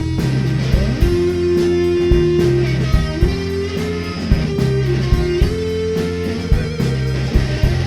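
Psychedelic rock band playing an instrumental passage: an electric guitar lead with sliding, held notes over bass guitar and a steady drum beat.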